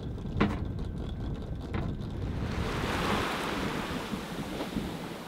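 Wind buffeting the microphone on a sailboat's deck, with a couple of light knocks. About halfway through it gives way to a steady rush of wind and choppy sea around the hull.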